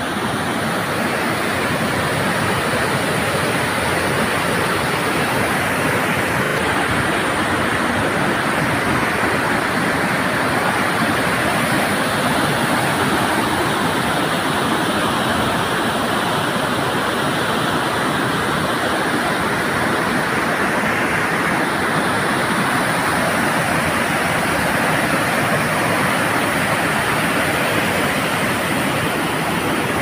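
Whitewater of a steep mountain torrent rushing over boulders: a loud, steady rush of water noise.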